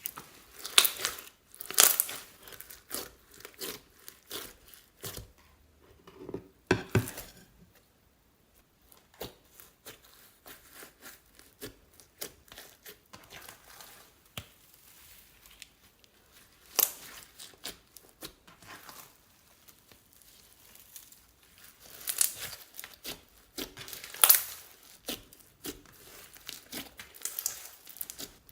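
Slime being squeezed, stretched and kneaded by hand: irregular crackling, popping and tearing sounds, in louder clusters with quieter moments between.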